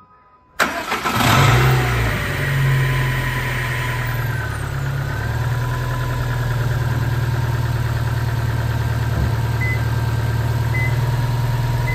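Subaru WRX STI's EJ20 turbocharged flat-four starting on a freshly fitted lithium-ion battery: it catches almost at once about half a second in, flares up in revs, then settles into a steady idle.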